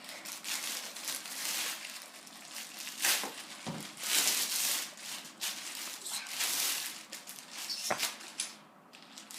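Plastic wrapping on a new hockey stick crinkling and rustling in irregular bursts as it is handled and pulled off. The bursts die down near the end.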